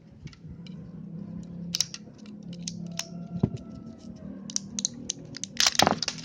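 Irregular sharp plastic clicks and snips from hands handling the unboxed keyboard, mouse and packaging, with a burst of louder clicks near the end, over a faint steady low hum.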